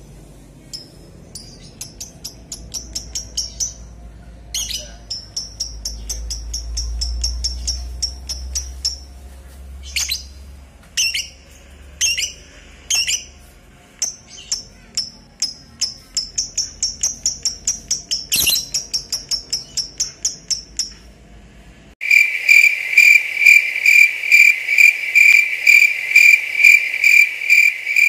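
Fischer's lovebird chattering in long, rapid trains of high chirps, broken by short pauses. About 22 seconds in, it gives way to a loud, fast-pulsing electronic jingle tone.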